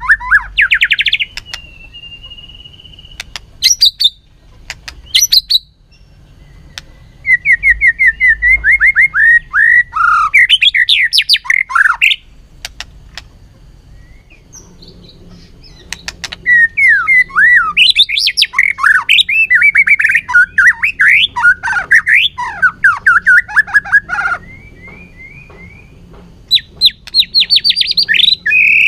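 White-rumped shama singing in loud bursts of rapid, varied whistled phrases, full of trills and sliding notes, broken by short pauses. A few sharp clicking notes fall between the phrases. This is the bird's competitive song.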